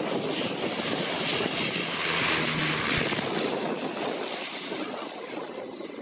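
Bombardier Dash 8-300's two turboprop engines and propellers on landing approach: a rushing drone that swells to its loudest two to three seconds in, then eases off as the aircraft passes toward touchdown.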